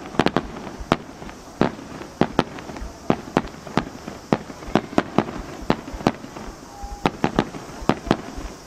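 Starmine fireworks display: aerial shells bursting in quick succession, with sharp bangs at irregular intervals, about three a second, over a steady background hiss.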